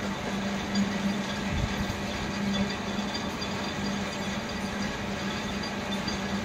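Steady mechanical noise of running machinery, with a constant low hum under a hiss that does not let up.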